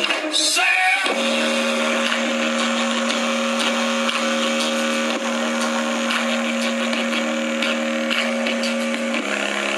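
JBL Flip 5 portable Bluetooth speaker playing a bass test track loud, its passive radiator pumping hard and the sound buzzing and distorted. A short rising sweep in the first second gives way to a steady held drone of several low tones, which shifts slightly near the end.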